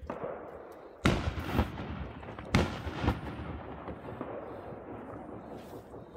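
Fireworks exploding: three loud bangs, one about a second in and two close together around the three-second mark, each trailing off in a long rumbling echo.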